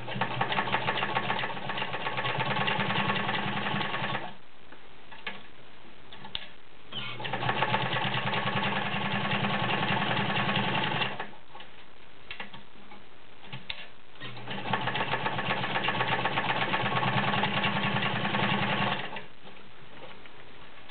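Dressmaker model 7000 all-metal sewing machine stitching through six layers of denim, in three runs of about four seconds each. A few clicks fall in the short pauses between runs.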